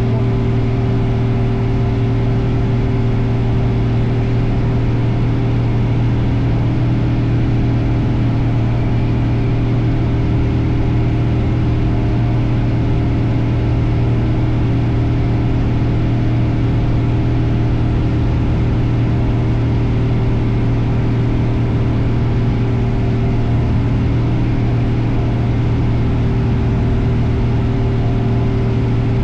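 Cessna light aircraft's piston engine and propeller running steadily at constant power, a loud, even, unchanging drone.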